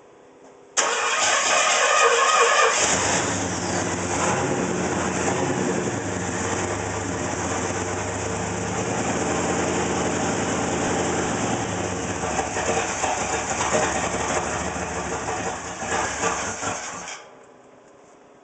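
A 301 cubic-inch engine is cranked by its starter for about two seconds, catches, then idles for about fourteen seconds before being switched off near the end. This is the rough idle the owner is showing.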